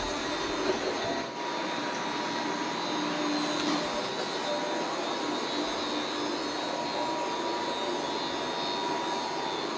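Robot vacuum cleaner running: a steady whir of its fan and brushes, with a thin steady whine on top.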